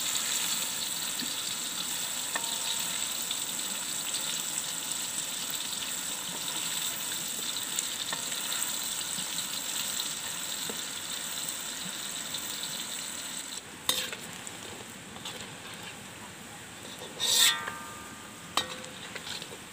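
Tilapia pieces deep-frying in hot oil in a steel wok, a steady high sizzling hiss as a metal ladle stirs them. About two-thirds through the sizzle turns quieter, and three sharp metal clinks, one of them ringing briefly, follow as a slotted spoon works against the wok.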